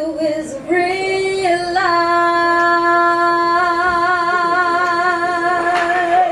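A solo voice singing without words: a few short notes, then one long held note with vibrato, then a step to a new note near the end.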